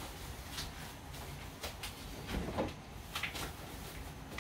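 A few soft, separate clacks and knocks of kitchen utensils and containers being handled, about a second apart.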